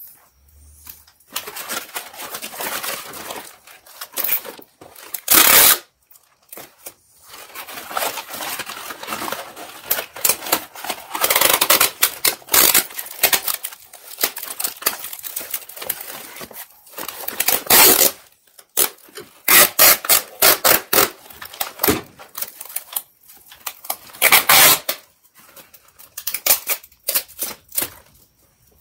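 Stiff brown desiccant paper crinkling and rustling as it is folded around a part, with adhesive tape pulled off the roll in several short, loud rips.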